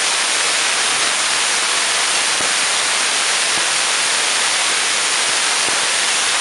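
6-inch spark gap Tesla coil running, its spark gap firing and streamers leaping from the toroid with no breakout point fitted: a loud, steady hissing of sparks, with a few sharper cracks now and then.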